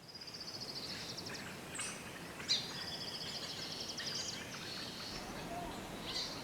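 Small songbirds singing: high, rapid trilled phrases, with a sharp chirp about two and a half seconds in, over a faint steady outdoor hiss.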